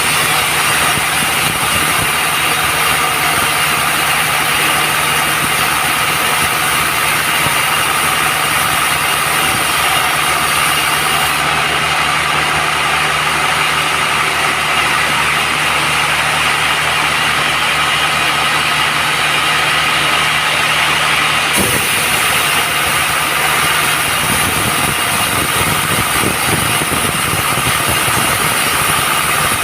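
Band sawmill running steadily, a loud continuous machine drone with a whining hum, with small abrupt shifts in tone about 11 and 22 seconds in.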